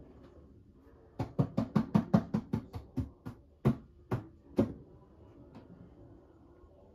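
A quick run of about fifteen sharp knocks, fast at first and then slowing, stopping a little past halfway.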